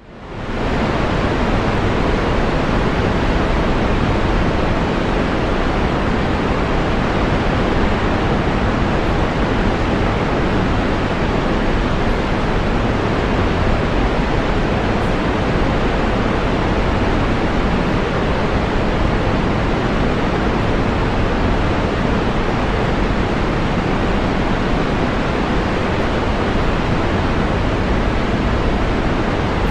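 Waterfall: a steady, unbroken rush of falling water, fading in quickly at the start.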